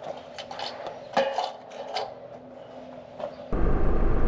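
Scattered light clinks and knocks, then about three and a half seconds in an abrupt switch to a motorcycle underway: steady engine and wind noise.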